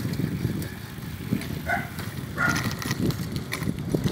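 Wind buffeting and road rumble on a bicycle's handlebar-mounted camera while riding, with scattered rattling clicks from the bike.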